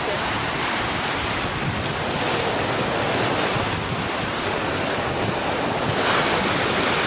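Black Sea surf breaking and washing in big waves, with strong wind buffeting the microphone. A wave surges a little louder about six seconds in.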